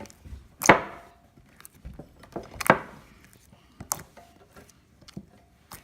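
Sticky clear slime with glitter being kneaded and stretched by hand: wet squelches and small crackling clicks, with two louder squelching slaps, one about a second in and another near the middle.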